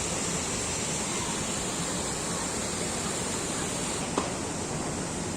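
Steady rush of flowing water, with a single sharp click about four seconds in.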